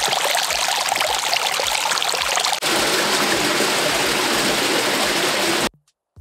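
Running water trickling and splashing over stone, a steady rushing. There is a brief break about two and a half seconds in, and it cuts off abruptly near the end.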